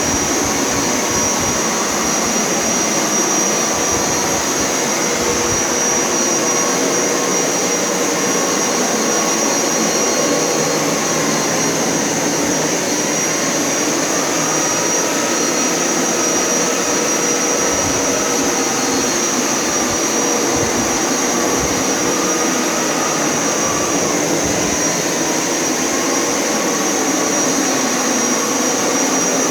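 Hoover Power Scrub Elite carpet washer running steadily on a carpet rinse pass, its motor giving a constant high whine under a hum that dips and rises slightly in pitch.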